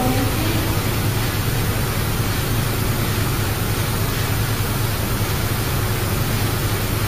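Steady workshop background noise: an even hiss over a low, constant hum.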